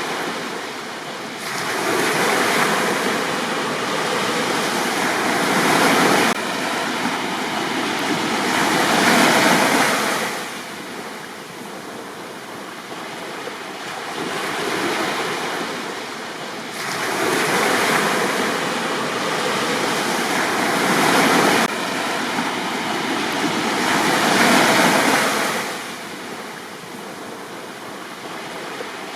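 Sea waves breaking on a beach, the surf swelling and washing back every few seconds in a steady cycle.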